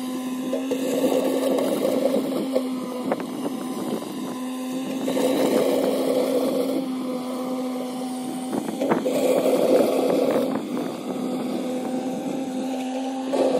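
Kubota B2601 compact tractor's three-cylinder diesel engine running steadily while the tractor works with its front loader, swelling louder every few seconds, with a few knocks around the third and ninth seconds.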